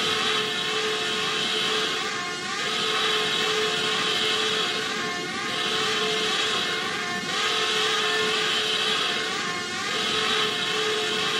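Droning, machine-like sound-effect bed under a self-destruct countdown: a steady hum with held tones that swells and dips every two to three seconds.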